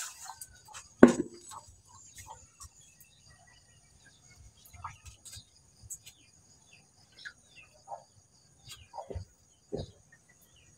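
Dishwashing at a sink counter: a single knock about a second in, then light clinks and scrapes of hands washing inside a metal pot, with two more knocks near the end. A faint steady high insect trill runs underneath.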